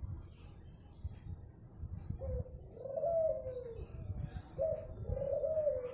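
Zebra dove (perkutut) cooing: two phrases of wavering coos, the first starting about two seconds in and the second near the end.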